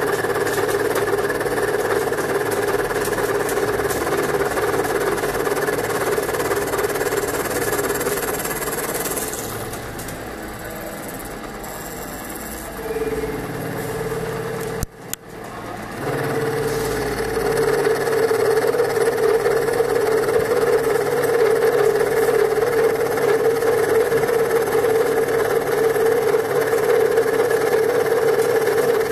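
CNC milling machine milling lead: a steady whine from the spindle and cutter. It grows quieter for several seconds midway, breaks off briefly about halfway, then comes back louder.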